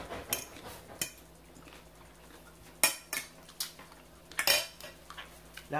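An eating utensil clicking and scraping against a dish of salad in a handful of sharp strikes, the loudest about three seconds in and again about four and a half seconds in.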